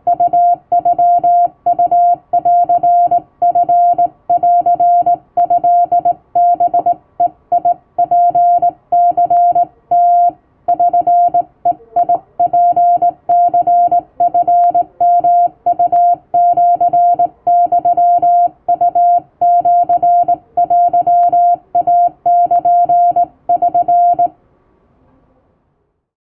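Hand-keyed Japanese (Wabun) Morse code: a single steady tone switched on and off in dots and dashes at an uneven human rhythm, stopping shortly before the end.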